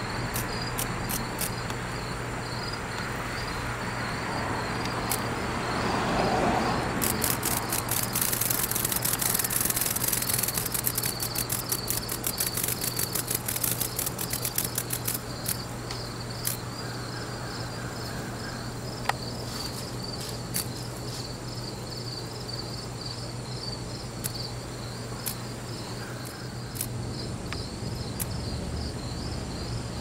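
Insects chirping in a steady, even rhythm of high-pitched pulses, with a burst of dense high clicking about seven seconds in that lasts several seconds. A low steady hum runs underneath.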